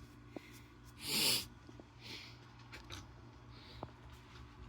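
A person sneezes once, sharply, about a second in, followed by a few soft brush strokes across feathers.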